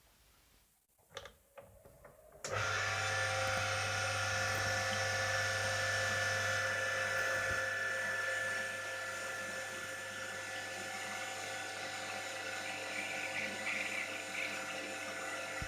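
A few clicks, then an electric motor starts suddenly about two and a half seconds in and runs steadily with a low hum and a high whine, dropping a little in level a few seconds later.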